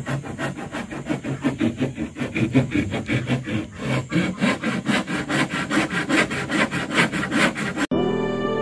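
Quick, even back-and-forth strokes of a hand tool worked on wood, about five a second, then cut off suddenly near the end by soft background music.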